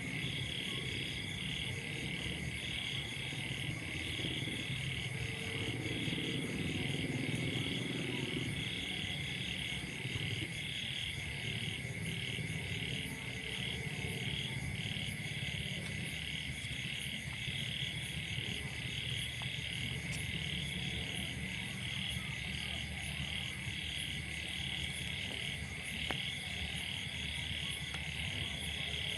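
A night chorus of frogs and insects: a pulsed croaking call repeating evenly over and over, above a continuous high trill, with a steady low rumble underneath.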